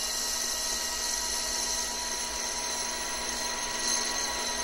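Metal lathe running steadily with its chuck spinning a cast-aluminium gas cap lid, a steady hum with a faint motor whine.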